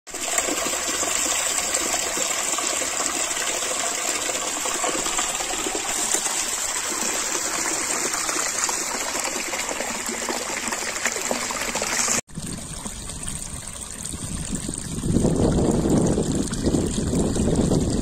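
Spring water trickling and splashing down a narrow channel over rock, a steady rushing hiss. About twelve seconds in it cuts out for an instant and comes back deeper and fuller, growing louder a few seconds later.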